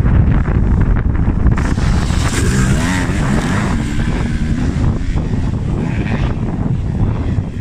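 Motocross bike engine revving up and down as the rider goes over sandy whoops, with wind buffeting the microphone.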